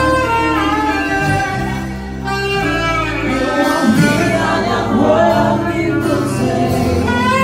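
Live worship music: a saxophone playing a sustained, bending melody over a band backing with a steady bass line.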